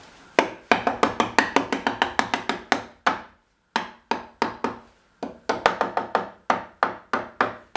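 Claw hammer tapping lightly and rapidly on the wooden bottom panel of a birdhouse nesting box, about five taps a second in two runs with a short pause about three seconds in. The panel is a tight fit, and the taps are seating it flush in the box.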